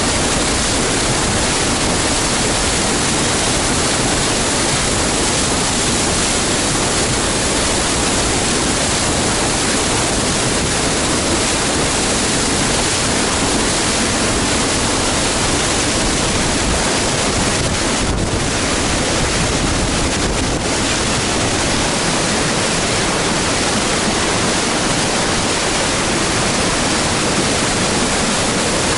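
Waterfall on a river in spring flow: a loud, steady rush of falling water.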